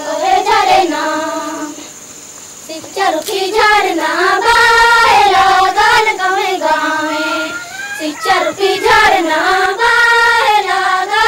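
A group of young girls singing a song together in one melody, with long held notes; the singing drops away briefly about two seconds in.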